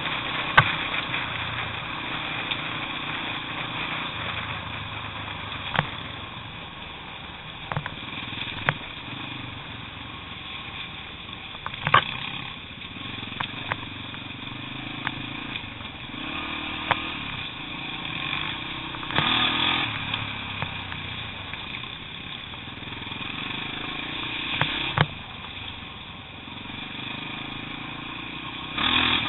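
Trail motorcycle engine running over a rough, stony track, its pitch stepping up and down every few seconds with throttle and gear changes. Sharp knocks and rattles come now and then as the bike jolts over the stones.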